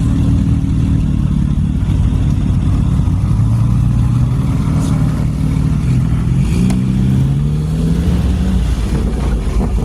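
Car engine running with a low rumble. Its pitch sinks around the middle, then climbs again as it accelerates.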